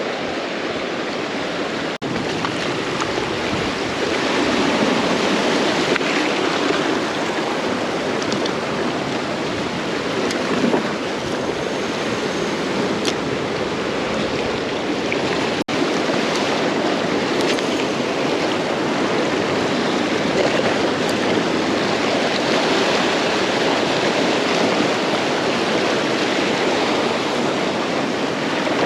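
Ocean surf washing steadily against the shore, a continuous rushing noise that cuts out for an instant twice.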